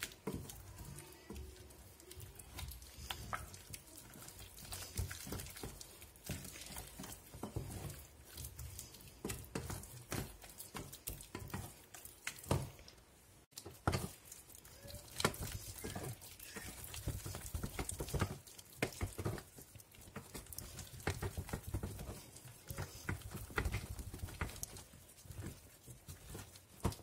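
Wooden spatula stirring thick choux dough in a stainless steel saucepan as an egg is worked in: irregular scrapes, taps and wet squelches of the sticky paste against the pan.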